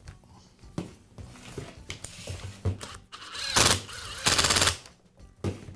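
Makita cordless impact driver driving the screws into a Makita nibbler's rear motor cover, in two short bursts a little past halfway. The second burst rattles with the rapid blows of the impact mechanism as the screw seats. Before them come light clicks and knocks of the plastic cover being handled into place.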